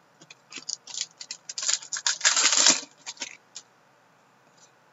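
Glossy hockey trading cards being slid and flipped over one another by hand: a run of light clicks and flicks that thickens into a dense rustling swish about two seconds in, then stops.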